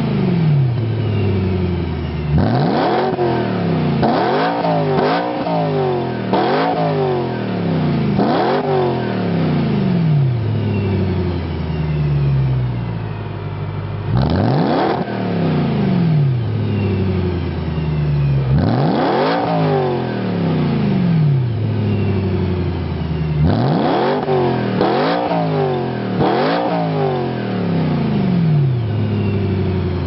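BMW E92 M3's V8 breathing through an Arqray race exhaust with a Challenge X-pipe, revved while standing. It gives repeated sharp blips, each climbing quickly and falling back slowly toward idle, with one longer settle near idle in the middle before more revs.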